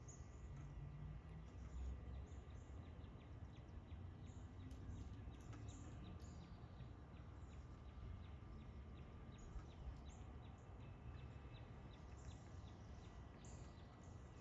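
Faint birds chirping, short scattered high calls, over a low steady background rumble.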